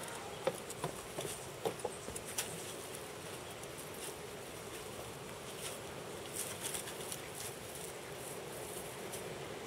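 Faint outdoor ambience: a steady buzz with scattered small clicks and rustles, thickest in the first couple of seconds and again about six to seven seconds in.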